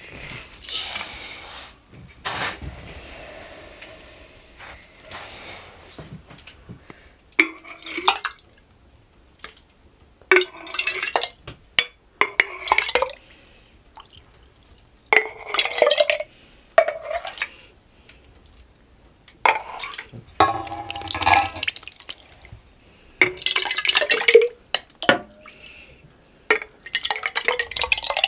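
Metal ladle scooping a frothy milky liquid from an enamel bowl and pouring it into a glass jar, with the ladle clinking against jar and bowl and the liquid splashing in. About eight separate scoops, each a short burst a couple of seconds apart.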